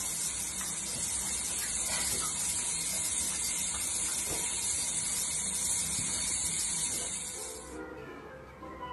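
A steady hiss of spraying water that cuts off abruptly near the end.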